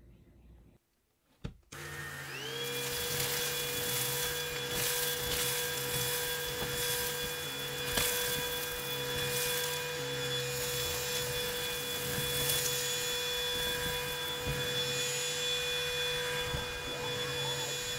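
Vacmaster Joey Compact cordless stick vacuum switched on with a click about a second and a half in. Its motor whines up to speed within a second and then runs steadily while it sucks a pile of granular debris off pool table felt, with scattered crackles of grit going up the nozzle.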